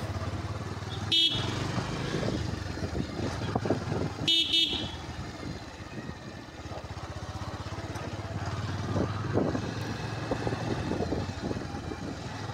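Bajaj Pulsar 150 motorcycle's single-cylinder engine running on the move, with two short horn honks, a brief one about a second in and a longer one at about four and a half seconds.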